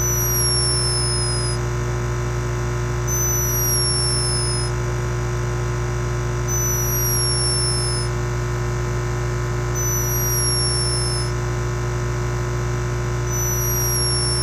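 Steady electronic drone made of many fixed hum tones, with a short high falling chirp repeating about every three seconds; it cuts off suddenly near the end.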